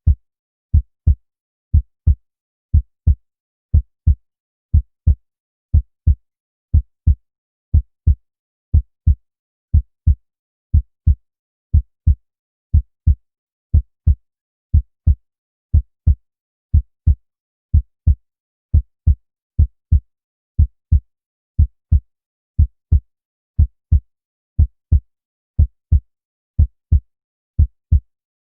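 Heart sounds: a steady lub-dub, pairs of short low thumps repeating about once a second.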